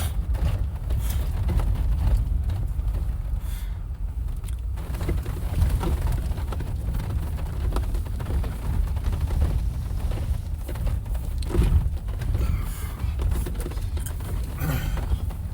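Off-road vehicle driving on a rough dirt trail, heard from inside the cab: a steady low rumble with scattered knocks and rattles.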